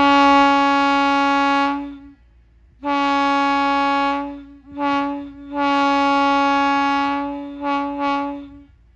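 Railroad air horn blown in a series of blasts: a long blast, a second long blast, a short one, then a long final blast that breaks briefly twice near its end. The horn holds one steady pitch throughout.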